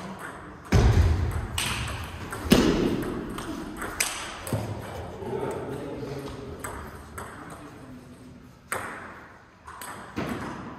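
Table tennis ball in play, a run of sharp clicks off bats and table, with a few louder knocks that ring on briefly in a large room.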